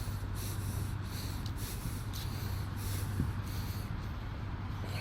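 A steady low mechanical hum under a rushing background noise.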